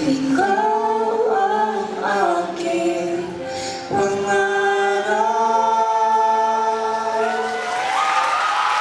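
A song: a voice singing a slow melody in long held notes that slide from one pitch to the next.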